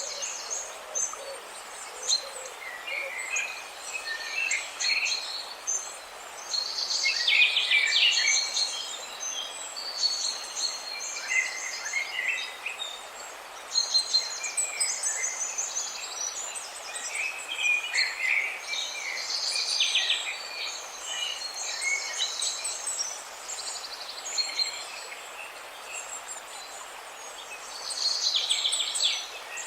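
Several birds chirping and calling over one another: short high chirps and rapid trilled notes coming in clusters, over a steady background hiss.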